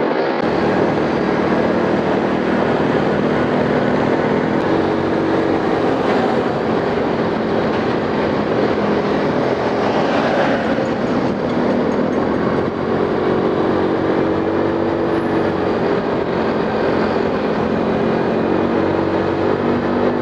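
Motor scooter engine running steadily while riding along the road, with road and wind noise.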